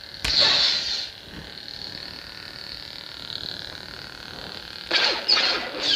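Sabermach Dark Storm lightsaber's speaker playing its sound font. About a quarter second in there is a sharp crack with a hissing swing, then the blade's steady electronic hum, and a quick run of swing whooshes near the end.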